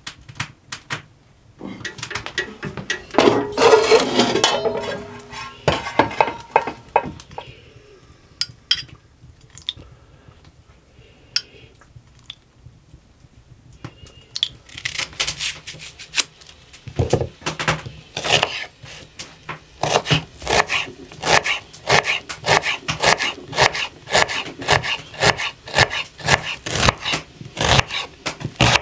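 Kitchen work: dishes and utensils clinking and scraping, then from a little past halfway a knife chopping on a cutting board at a steady two to three cuts a second.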